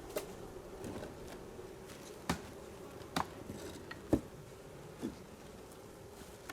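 Honeybees buzzing in a steady hum around the hive, with several short, sharp knocks scattered through, the loudest about four seconds in.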